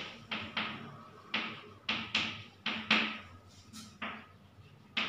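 Chalk tapping and scratching on a chalkboard as handwriting is written: a run of short, sharp strokes, unevenly spaced at about two a second.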